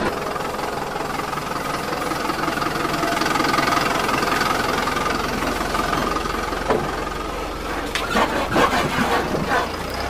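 Steady running sound of a truck engine, idling with a slight knock, with a few sharp clicks near the end.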